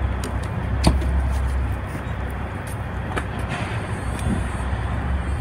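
Outdoor street ambience: a steady low rumble of traffic, with a few light clicks about a second in and again about three seconds in.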